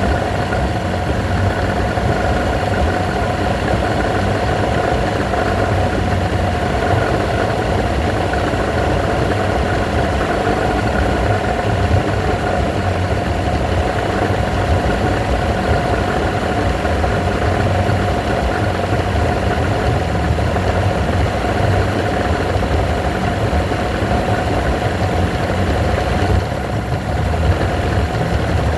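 Evinrude 120 hp V4 two-stroke outboard motor idling roughly, running unevenly. There is a brief dip about 26 seconds in.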